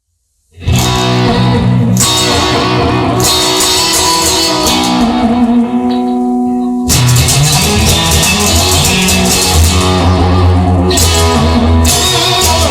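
Instrumental opening of a song: guitar playing with bass underneath and no singing, starting after about half a second of silence.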